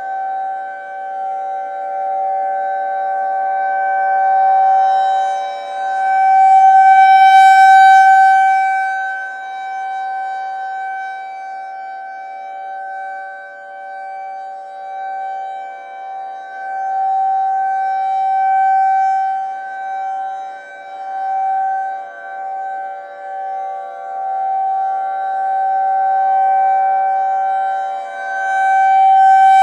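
Federal Signal 2001-SRNB rotating outdoor warning siren sounding a steady full-alert tone: two held pitches with many overtones, loud, swelling and fading repeatedly as the rotating horn sweeps past.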